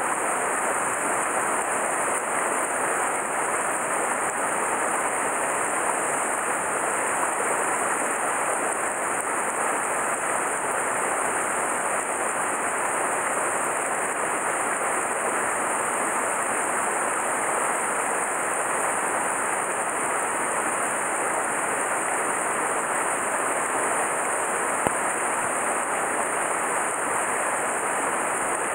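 Steady rush of a mountain stream's flowing water, an even, unbroken noise.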